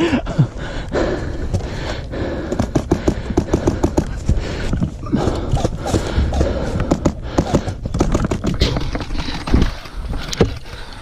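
Irregular footsteps, knocks and the rattle of gear as a person moves about, over a low rumbling of wind or handling on the microphone.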